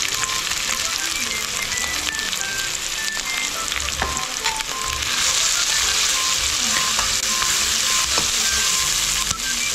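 Sliced onions, green chillies, garlic and ginger sizzling in hot oil in a stainless steel kadai, stirred with a metal spatula that clicks against the pan. The sizzle grows louder about five seconds in.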